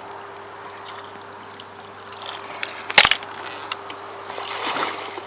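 A hooked carp splashing and sloshing at the surface in the margin, with a sharp knock about three seconds in.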